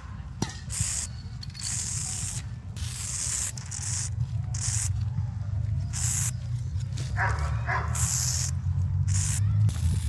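Aerosol spray paint can hissing in about eight short bursts of uneven length, with brief pauses between, as paint strokes are sprayed onto a wall. A steady low rumble runs underneath.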